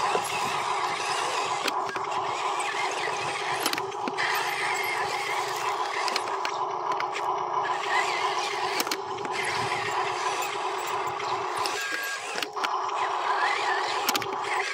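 Electric motor and gearbox of a Huina RC dump truck whining steadily as it drives loaded over dirt, with a few sharp clicks scattered through.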